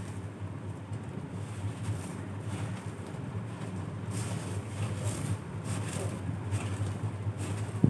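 A steady low hum throughout. From about four seconds in come several short, faint crackly crunches, typical of puffed rice being chewed. A sharp click falls right at the end.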